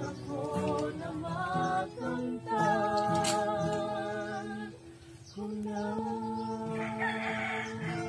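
Voices singing a song with acoustic guitar, long held notes with a slight waver. The singing dips briefly about five seconds in, then resumes.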